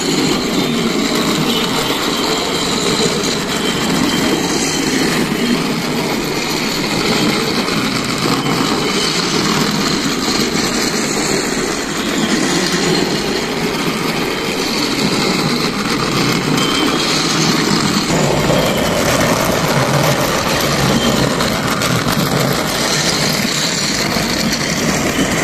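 Battery-powered plastic toy trains running on plastic track: a steady whirring and rattling of their small electric motors and wheels, shifting a little in tone about eighteen seconds in.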